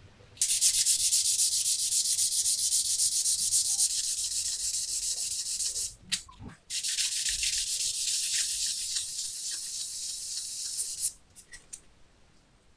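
A strip of plexiglass is rubbed back and forth by hand on sandpaper, a fast, even scratchy sanding that frosts its surface. It runs in two long spells separated by a short pause with a few clicks about six seconds in, and stops about eleven seconds in.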